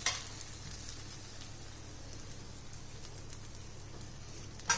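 Faint steady background hiss with a low hum, and one short knock near the end.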